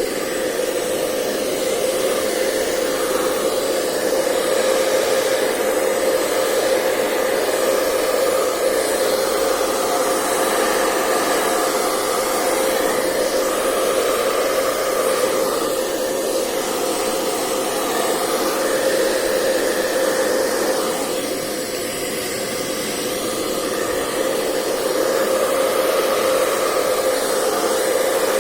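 Electric air blower running steadily with a whine, blowing dust out of an opened laptop. It eases a little about three quarters of the way through, then comes back up.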